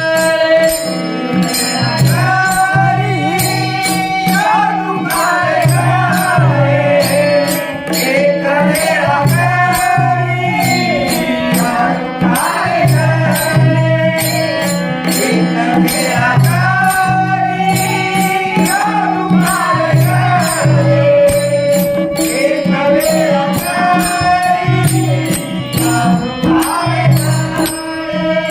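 Marathi devotional bharud song: a singer's voice carrying a bending melody over harmonium, with a steady beat of a hand drum and sharp strokes of small hand cymbals.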